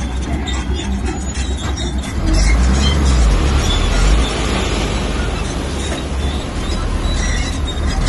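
Bulldozer's diesel engine working under load with metallic track noise; the engine grows louder about two seconds in and eases off again about two seconds later.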